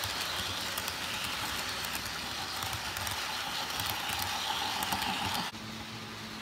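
Model freight cars rolling past on the track: a steady rolling rumble with fine rapid clicking of wheels on rail. It cuts off abruptly about five and a half seconds in, leaving a quieter steady hum.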